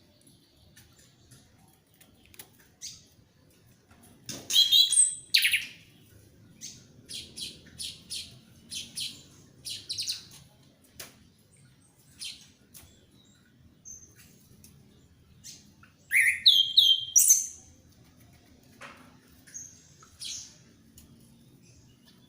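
Orange-headed thrush singing a varied song. Two loud bursts of quick high phrases come about four seconds in and again about sixteen seconds in, with a run of short sharp notes between them and scattered single notes near the end.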